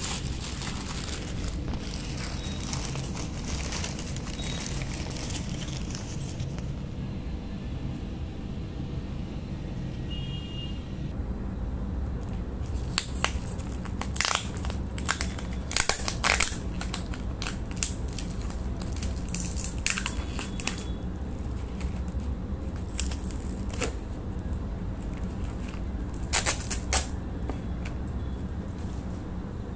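Takeaway biryani packaging being opened: crinkling and rustling for the first few seconds, then a run of sharp crisp snaps in the second half, over a steady low hum.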